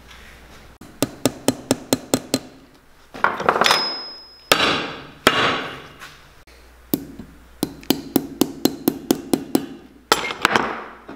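Cobbler's hammer tapping hobnails into a leather boot sole, in quick runs of light sharp strikes. A few louder strikes ring on and fade between the runs.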